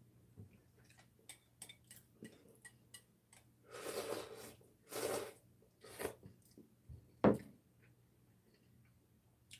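Eating sounds: small clicks of chopsticks against a glass bowl and chewing, with two short slurping sips from the tipped bowl about four and five seconds in.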